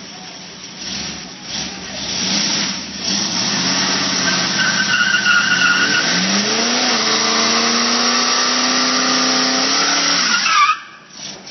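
A vehicle doing a burnout: the engine is held at high revs while the drive tyre spins and squeals against the floor, building up over several seconds. Near the end it cuts off abruptly as the revs drop.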